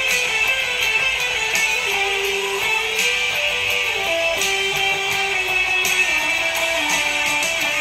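White Les Paul-style electric guitar being played: a line of held notes stepping from one pitch to the next, with picked attacks.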